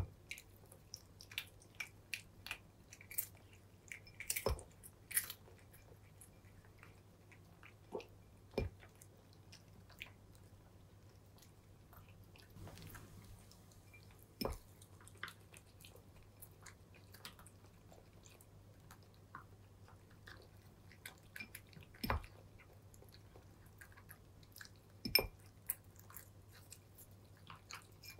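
Two cats crunching dry kibble from ceramic bowls: a steady scatter of small crisp crunches, with a few louder sharp knocks now and then.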